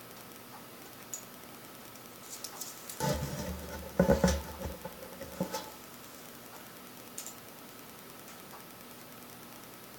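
Computer mouse being handled and clicked on a desk: a few scattered faint clicks, with a short cluster of knocks and rustling about three to five seconds in, over a faint steady hiss.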